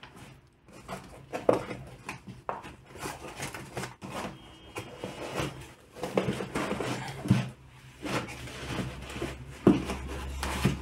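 Cardboard carton flaps rustling and scraping as a jute-covered gift box is worked out of the carton by hand, with scattered knocks and rubbing. A low steady hum comes in about eight seconds in.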